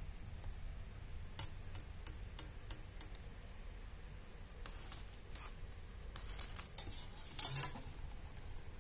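Small irregular clicks and scratches of a mechanical pencil and steel ruler being handled on padded fabric, with fabric rustling; a louder brief scrape comes about three-quarters through.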